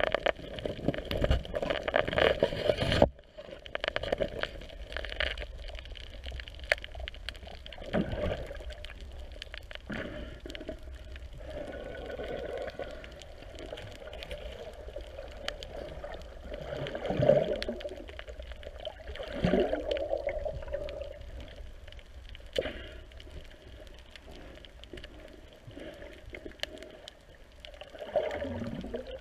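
Muffled underwater water noise heard through an action camera's waterproof housing. A louder rushing stretch over the first three seconds settles into a steady wash, broken a few times by short whooshes that sweep downward in pitch.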